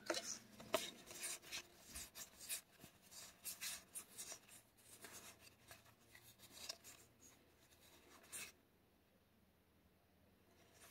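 Faint handling of trading cards: a run of short slides and flicks of card stock as cards are moved one by one off the pile. It stops about eight and a half seconds in.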